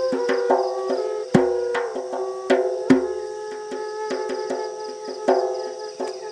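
Recorded music with a fast, even percussion beat, melody notes and a bass line, over a steady high trill of night insects.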